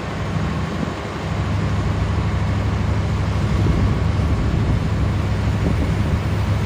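Fast floodwater rushing along a street, a steady low rush that grows slightly louder after about a second.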